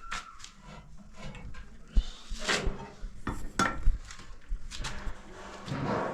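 Irregular knocks and clatter of wood and metal being handled, as in door repair work, with two heavier thumps about two and four seconds in.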